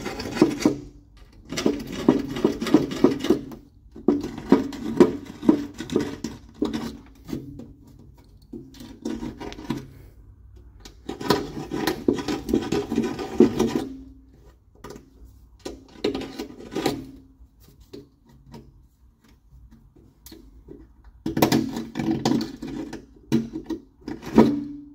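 Hand deburring tool scraping the edges of freshly drilled holes in an aluminium racing seat shell. The scraping comes in repeated strokes of one to three seconds with short pauses, and the thin metal rings under the blade.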